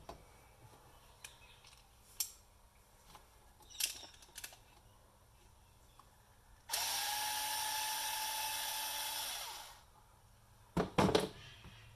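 Power drill-driver with an extra-long-shank bit running steadily for about three seconds with a steady whine, then winding down. Scattered light clicks before it and a few sharp knocks after it as grinder parts are handled.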